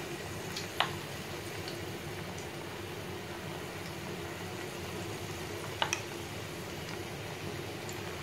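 Small dollops of besan (gram-flour) batter frying in hot oil, a steady sizzle and bubbling, with a few sharp clicks: one about a second in and a close pair near six seconds in.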